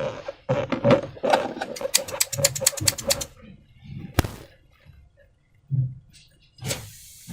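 Slime being squished and worked by hand: a dense run of rapid wet clicks and crackles for about three seconds, then one sharp click and a few softer squelches.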